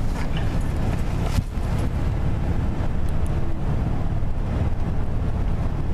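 Cabin noise of a moving van at road speed: a steady low rumble of engine and tyres, with a single knock about a second and a half in.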